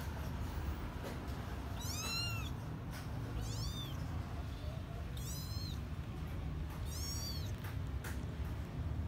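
Newborn kittens mewing: four high-pitched mews spaced about one and a half to two seconds apart, each rising and then falling in pitch, over a low steady hum.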